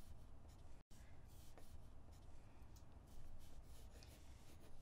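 Faint scratching of a graphite pencil, a Tombow Mono, drawing short strokes on paper.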